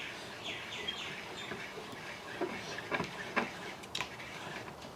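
Router lift being wound up by hand on its lead screw, giving faint, irregular clicks and light squeaky ticks from the mechanism.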